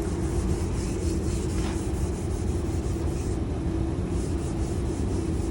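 Power sander running steadily on the truck's painted body, a constant machine hum under an even scraping hiss.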